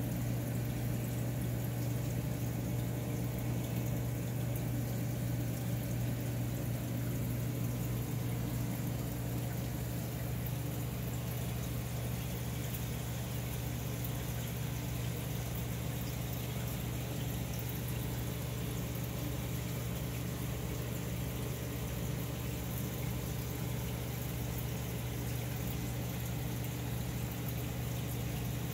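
Aquarium pumps and filtration running: a steady low hum with a continuous wash of moving water.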